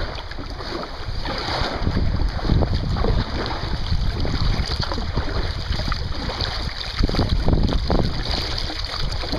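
Kayak paddle strokes splashing and dripping in slow river water, with wind buffeting the microphone as a low, uneven rumble throughout.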